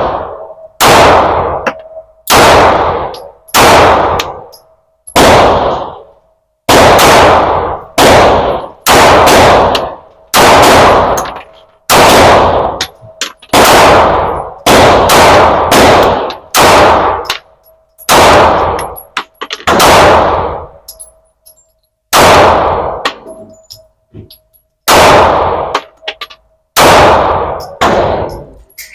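A Glock 45 9 mm pistol fired one shot at a time, about twenty shots at an irregular pace of roughly one every one to two seconds. Each report rings out in the echoing range lane, with a longer pause near the end.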